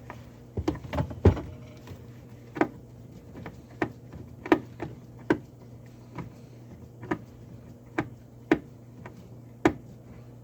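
Irregular sharp clicks and light knocks, about a dozen, from hand work on the old garbage disposal's electrical connections, over a faint steady low hum.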